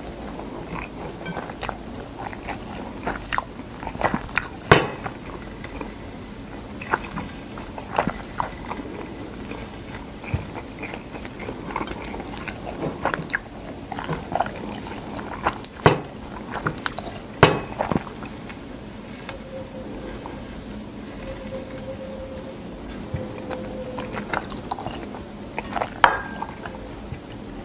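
Close-miked chewing of dry gamtae seaweed, with irregular sharp crackles from the crisp sheets as they are chewed and handled.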